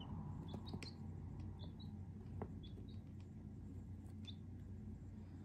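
Young chicks (Easter Egger and Starlight Green Egger pullets) peeping softly: about nine short, high peeps, several in quick pairs, over a steady low hum. A faint click comes about two and a half seconds in.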